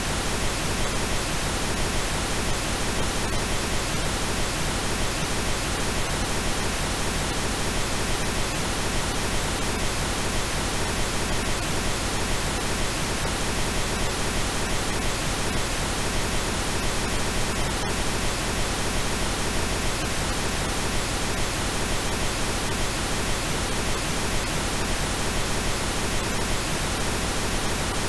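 Steady synthetic pink noise: an even, continuous hiss spread across the whole range, with a few faint steady tones inside it from its shaping as a frequency match.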